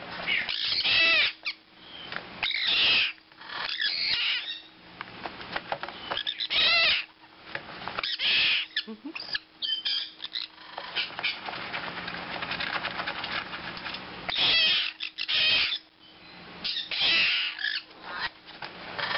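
Young sun conures and a blue-crowned conure calling in repeated shrill squawks and screeches, in bursts every second or two. About eleven seconds in, the calls give way to a few seconds of scuffling noise before the squawks start again.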